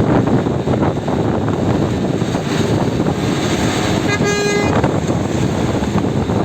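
Steady loud rumble of wind buffeting the microphone, with a single short vehicle horn toot about four seconds in, lasting about half a second.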